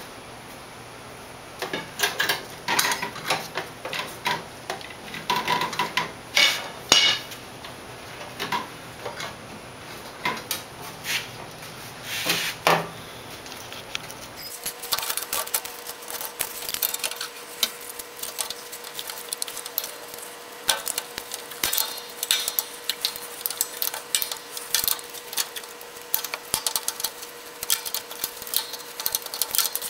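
Irregular metallic clinks and knocks from hand work on a riding mower's drivetrain, as the drive belt is worked off and the transmission is freed. In the second half the clicks are lighter and quicker.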